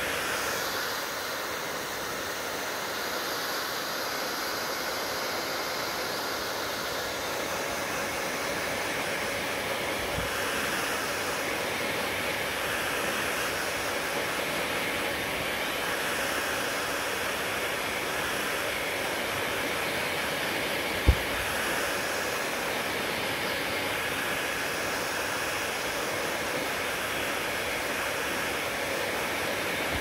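Hand-held hair dryer blowing steadily at close range while drying wet hair. One sharp knock sounds about two-thirds of the way through.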